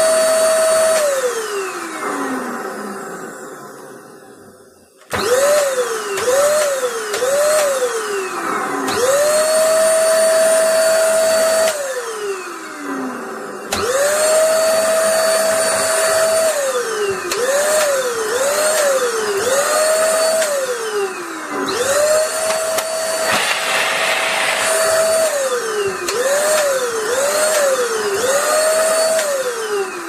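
Corded stick vacuum cleaner's motor switched on and off again and again. It spins up to a steady whine and winds down with falling pitch, and several times it is flicked on only briefly, rising and dropping in quick succession. This is the on/off switch being tested after a repair that bent the switch pin so the push rod reaches it.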